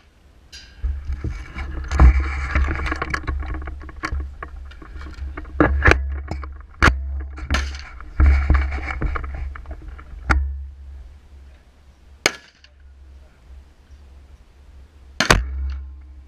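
Suppressed AR-15 firing a string of about seven shots at irregular intervals, each a sharp crack heard through a GoPro mounted on the rifle's rail. A low rumble swells after several of the shots and fades between them.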